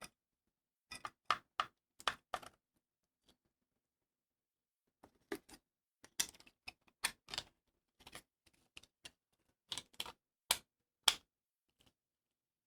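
Sharp clicks and taps from hard objects being handled, in irregular clusters of a few at a time with pauses between.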